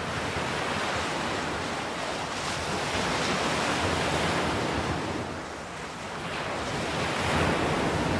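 Sea water sloshing and splashing against a camera held at the waterline, which starts out under the surface, with wind on the microphone. The wash swells and eases, dipping briefly about two-thirds of the way through.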